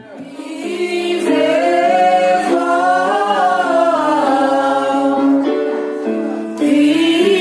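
Women's choir singing an Indonesian march song together, the voices coming in at the start and holding long notes.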